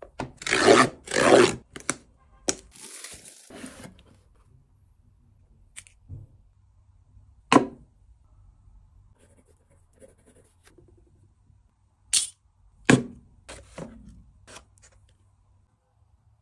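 A cardboard box handled on a wooden table: two long scraping slides at the start, a rustling tear a few seconds in, then scattered sharp taps and clicks with softer rustles from the box and its small metal items.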